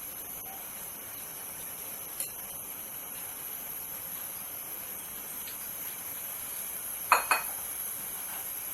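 Kitchenware clinking over a steady faint hiss: one light clink about two seconds in, then two sharp ringing clinks in quick succession near the end, a bowl or utensil knocking against a hard dish.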